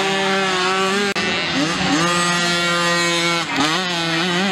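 55cc mini motocross bike engines running at high revs close by, a held buzzing note that drops and climbs back twice, about a second and a half in and near the end, as the throttle is closed and opened again.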